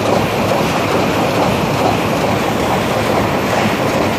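Egg-handling conveyor machinery running steadily and loudly, a dense continuous mechanical rattle from the conveyor lines carrying rows of eggs.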